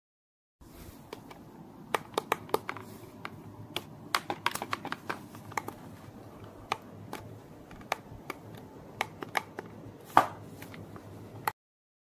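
Irregular sharp clicks and taps from objects being handled, over faint low background noise, with one louder knock about ten seconds in.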